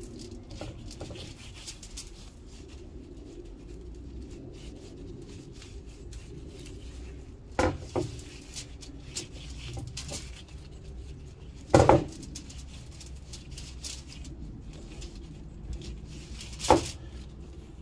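Cast iron grill grates being handled while greased by gloved hands: soft rubbing and rustling of foil, with three sharp metallic clanks as a grate is set down or knocks against the other grates, about halfway through, about two-thirds in and near the end.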